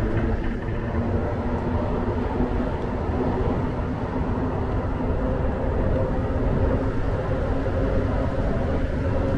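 Inside a Montreal Azur metro car running on rubber tyres between stations: a steady, loud rumble with a low, even motor hum.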